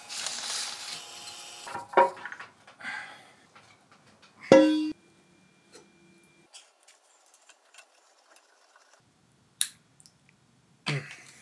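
Metal workshop handling: a scraping, rustling stretch, then a few sharp metallic clinks. The loudest clink, about four and a half seconds in, rings briefly, and faint taps follow, with two more sharp knocks near the end.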